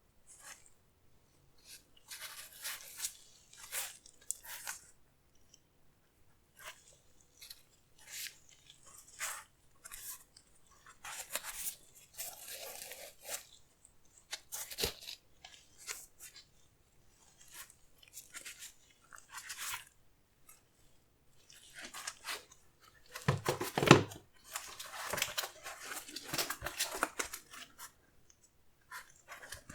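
Sneaker packaging being handled: paper and cardboard crinkling, crunching and tearing in irregular bursts. A louder, denser run of crumpling with a dull bump comes most of the way through.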